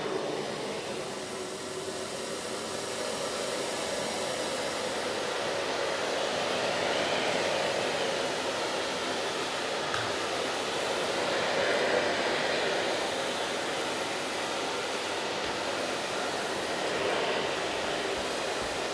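Karcher VC 6100 dry vacuum cleaner running, a steady motor whine and rush of suction air that swells and eases a little.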